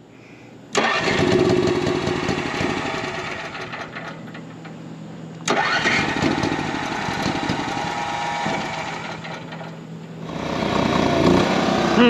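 Onan MicroLite 2800 RV generator being cranked on its starter in two tries, one starting about a second in and the next about halfway through, each fading after several seconds: a first start on a newly fitted carburetor that is only just getting fuel. Near the end the generator runs steadily.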